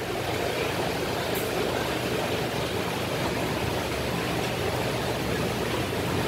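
Steady rushing water noise with a low hum underneath, like a large tank's circulating water and pump.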